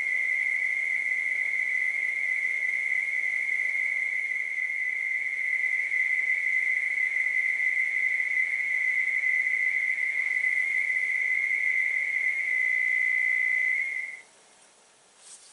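A 300-baud modem data signal played from a music CD: a steady high-pitched modem carrier tone with faint hiss, cutting off abruptly about fourteen seconds in as the data track ends.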